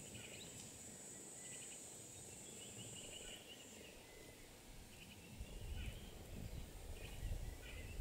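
Faint outdoor ambience: a steady high insect drone that stops a little over three seconds in, with scattered short bird chirps throughout. A low rumbling noise comes in past the middle and grows louder toward the end.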